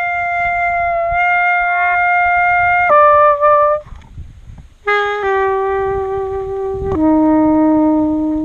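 Solo wind instrument with a brass bell playing improvised long held notes. After a note held for about three seconds and a shorter lower one, it pauses briefly, then sounds three more held notes, each a step lower than the last.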